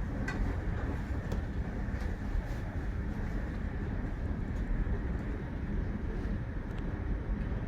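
JR Hokkaido Rapid Airport electric train running along the line, heard from inside the passenger car: a steady low rumble with a few faint clicks.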